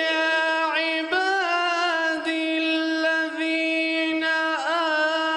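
A man's unaccompanied melodic Quran recitation, sung with tajweed: one long held vowel on a steady high note, ornamented with brief dips and turns in pitch every second or so.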